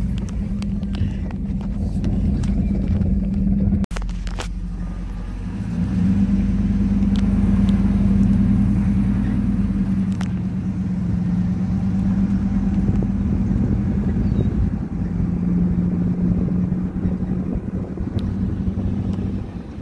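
Truck driving along a dirt trail: a steady engine drone with tyre and road noise, getting louder about six seconds in. The sound briefly cuts out about four seconds in.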